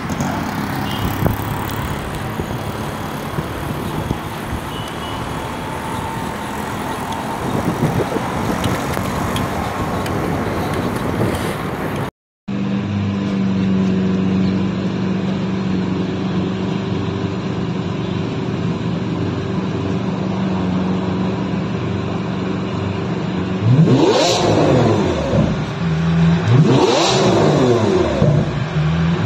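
Lamborghini Aventador's V12 idling steadily, then revved twice near the end, each rev rising and falling quickly. An unclear rumbling noise fills the first twelve seconds.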